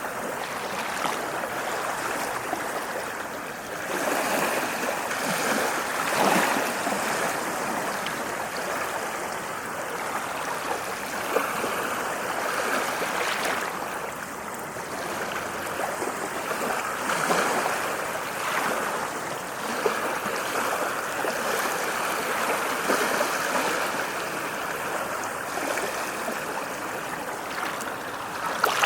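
Ocean waves washing onto a shore: a continuous rushing wash that swells up every few seconds as each wave breaks and runs in.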